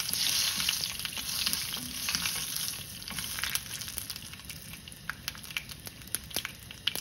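Tempering of mustard seeds, dried red chillies and asafoetida sizzling in hot sesame oil in a pan, stirred with a wooden spatula. After about three seconds the sizzle dies down into scattered sharp pops as the mustard seeds splutter, the sign that the tempering is done and ready for the paste.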